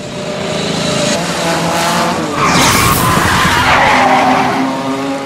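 Go-kart engines running and revving, with a tyre skid about halfway through as a kart slides through a corner.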